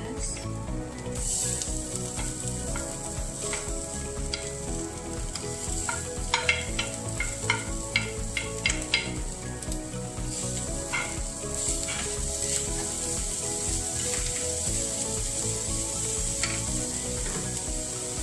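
Ground meat sizzling steadily as it fries in a nonstick pan, with diced carrots and potatoes stirred in. A run of sharp knocks and clicks against the pan comes about six to nine seconds in.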